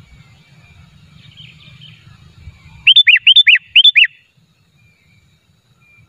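Sooty-headed bulbul (kutilang) singing a loud, quick phrase of six clear whistled notes in three pairs, each note arching up and down, about three seconds in. Faint chirping of other birds comes before it.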